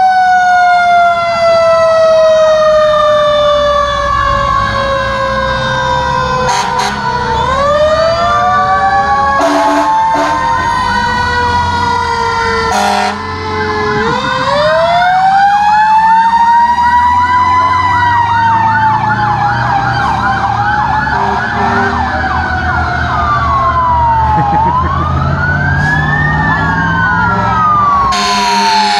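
Several fire truck sirens wailing at once: one tone falls slowly in pitch for the first seven seconds before others sweep up and down over it, above the low rumble of the trucks' engines. A few short sharp noises cut through, and a loud harsh blast comes at the very end.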